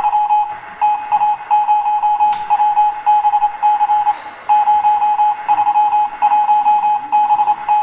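Telegraph Morse-code sound effect: a single steady beeping tone keyed on and off in short and long beeps, with a brief pause about four seconds in. It sounds as the telegram arrives and is read.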